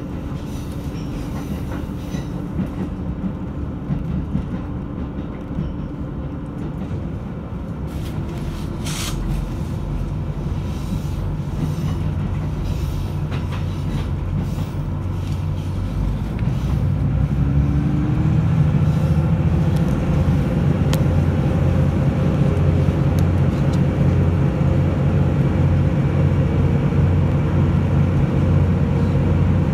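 Diesel railcar running, heard from inside the car: a steady rumble of the train under way, with the diesel engine's low drone growing louder about halfway through. One sharp click stands out about a third of the way in.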